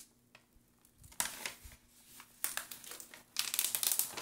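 Diamond painting canvas and its plastic cover film crinkling and rustling as they are handled and folded back, in several spells, loudest near the end.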